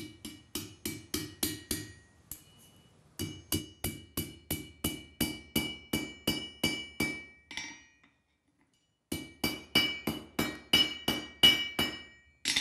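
Hand hammer striking a hot iron bar on an anvil, forging a bend into it, in steady runs of about three to four ringing blows a second. The hammering pauses briefly about 2 seconds in and again about 8 seconds in, and a harder blow lands at the end.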